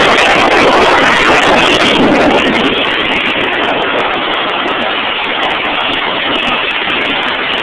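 Loud, steady rush of wind buffeting a small camera microphone, mixed with the noise of a UH-60 Black Hawk helicopter overhead, heard while hanging from a rope beneath it in flight. The rush eases slightly about two and a half seconds in.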